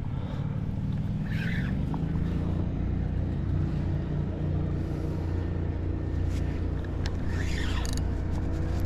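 Spinning reel being cranked steadily, a whirring gear hum that picks up a little in pitch in the first couple of seconds and then holds, as a hooked hardhead catfish is reeled in toward the kayak. There is low wind rumble on the microphone.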